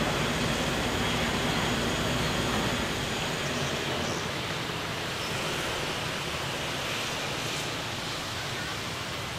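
Diesel locomotive running: a steady rushing noise over a low engine hum, which fades about three seconds in.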